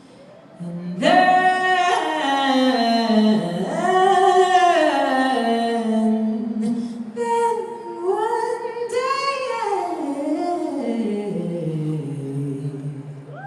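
Wordless singing in a high register: a voice gliding up and down through melismatic runs, without lyrics, starting about a second in.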